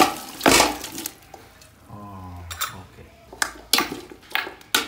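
Aluminium cooking pots clanking: a pressure cooker pan knocking against the rim of a large aluminium pot as cooked jackfruit is tipped and scooped into it, with a series of sharp metal knocks and some scraping in between.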